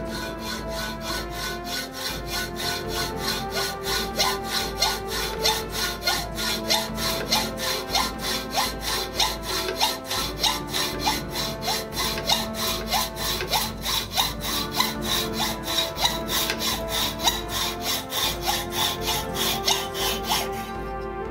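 Hand hacksaw cutting through a metal casting held in a vise, in steady back-and-forth strokes about two a second, over background music. The cut is trimming a fresh casting.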